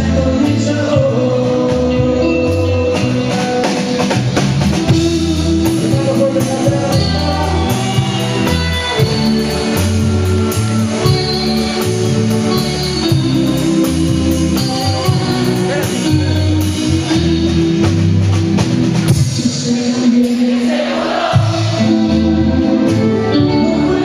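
Live band playing a nueva ola pop song, with electric guitars and a male lead singer.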